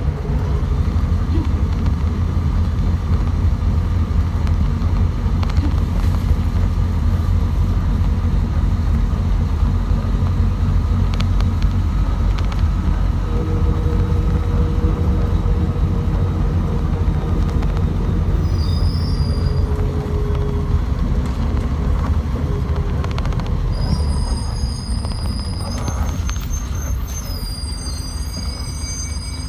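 City bus running along the road, heard from inside the cabin: a steady low rumble of engine and tyres, with a faint whine in the middle. Near the end the rumble eases as the bus slows, and a few high squeaks sound.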